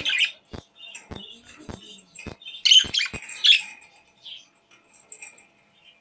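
A flock of budgerigars chirping in short bursts, loudest about halfway through. Under the first half runs a regular sharp clicking about twice a second, which stops about three seconds in.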